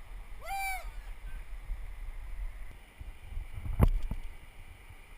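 Low, steady rumble of river water and wind on a camera mounted on a rowing oar. About half a second in comes a short, high call that rises then falls, and a little under four seconds in there is a sharp knock, the loudest sound.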